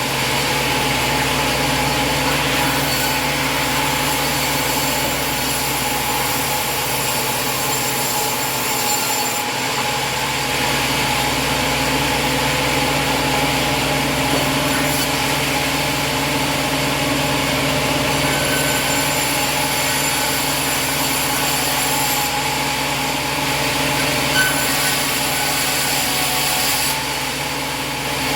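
Engine of a portable band sawmill running steadily as the band blade cuts through a log.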